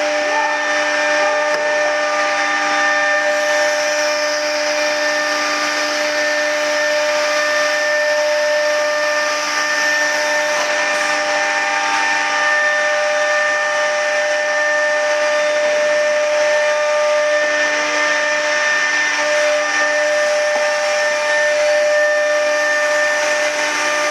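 Automatic-tool-change spindle of a CNC router running at a constant speed: a steady high whine of several held tones over a hiss.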